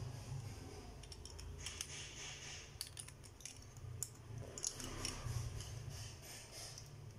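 Small plastic and metal parts of a Takara Tomy Beyblade top clicking and scraping faintly as they are handled and fitted together by hand, in scattered short clicks.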